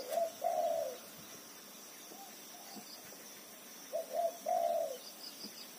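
A dove cooing in short repeated phrases, a couple of quick notes followed by a longer, slightly falling one; a phrase near the start, a fainter one in the middle, and a louder one about four seconds in.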